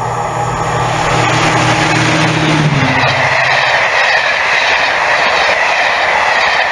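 Locomotive-hauled passenger train passing at speed close by. A low engine drone drops in pitch as the locomotive goes by, about three seconds in, and then the coaches' wheels rush along the rails with a steady loud noise.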